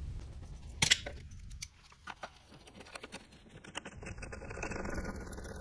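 A few light metallic clicks and taps of parts being handled in an engine bay, the sharpest about a second in. From about four seconds in there is a steady background noise.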